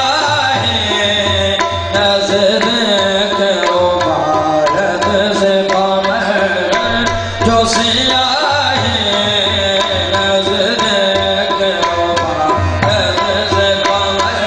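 Qawwali: a male lead singer with harmonium and a steady tabla rhythm, sung and played without a break.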